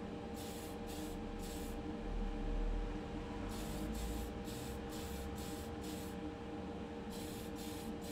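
Aerosol spray paint can sprayed in short hissing bursts: a few in the first two seconds, a quick run of them from about the middle, and a few more near the end. A steady hum runs underneath.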